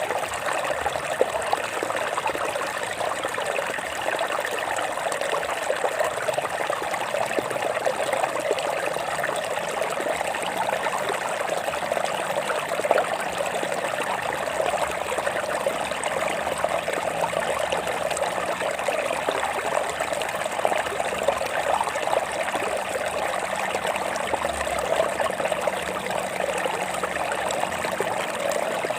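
Stream water flowing and trickling steadily, an even splashing rush with no pauses.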